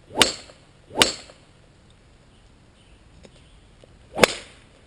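Golf club heads striking balls: three sharp cracks, two about a second apart at the start and the loudest near the end.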